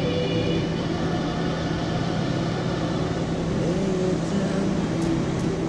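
Steady drone of a car driving, with engine and road noise and a constant low hum.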